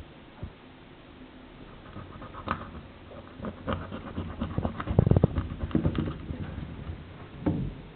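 Raw whole chicken being pulled open and torn apart by hand: irregular soft wet clicks and handling noises, loudest about five seconds in.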